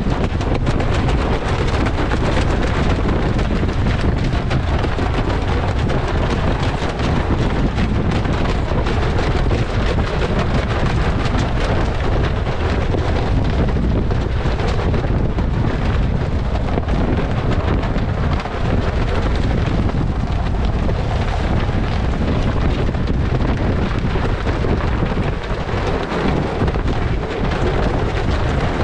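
Strong wind rumbling and buffeting on the microphone, with the rush of sea water along the hull of a sailboat heeled hard and sailing upwind. The wind has risen quickly as a forecast gale arrives.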